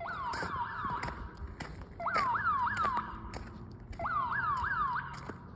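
Security alarm siren sounding in groups of about three quick falling whoops, each group about two seconds apart.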